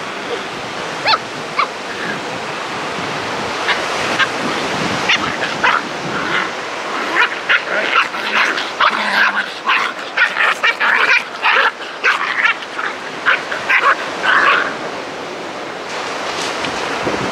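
Puppies play-fighting, giving many short, high yips and barks in quick runs, sparse at first and busiest through the middle, then dying away near the end.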